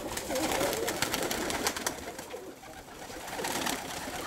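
Domestic pigeons (young Birmingham roller pigeons) cooing in low, wavering calls, with scattered light clicks and taps.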